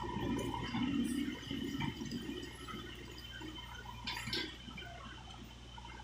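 JCB 3DX backhoe loader at work: its diesel engine runs with a steady low hum while loose soil pours and slides off the backhoe bucket onto the heap. The pouring is loudest in the first two seconds, and there is a brief high rasp about four seconds in.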